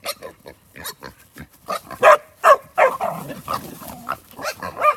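Working dogs barking and pigs calling out as the dogs drive them, in a rapid run of short calls that are loudest two to two and a half seconds in.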